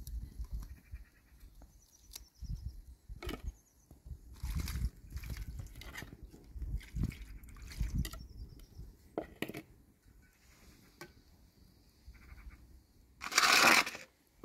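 Dishes and food being handled on stone tiles: scattered knocks and taps of a plastic bowl and steel trays, with a louder rustling clatter lasting about half a second near the end.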